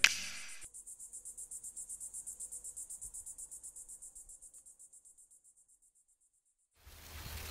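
Crickets chirping: a fast, high, pulsing trill of about five pulses a second that fades away over a few seconds. A music cue cuts off with a sharp sound at the start, and an even hiss comes in near the end.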